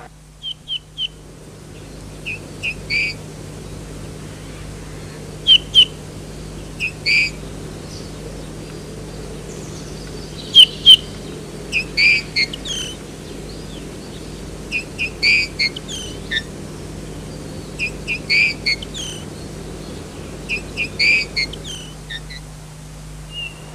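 Eurasian bullfinch calling: short, soft whistled notes, some single and some in quick clusters of two or three, with pauses between.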